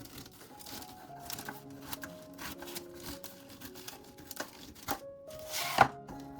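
Background music with a simple melody, over handling sounds: scattered clicks and knocks, and one loud rustle about five and a half seconds in.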